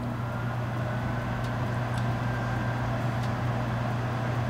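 Microwave oven running, heating water: a steady electrical hum with the whir of its fan.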